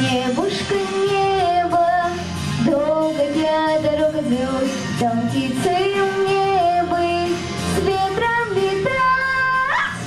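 A girl singing through a handheld microphone with instrumental accompaniment, holding long notes and sweeping up in pitch near the end.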